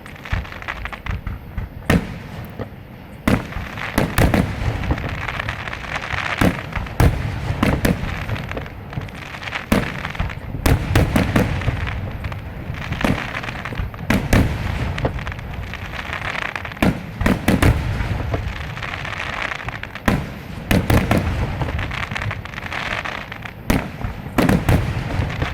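Fireworks finale: a rapid, irregular barrage of shell bursts and booms, several a second at times, over continuous crackling.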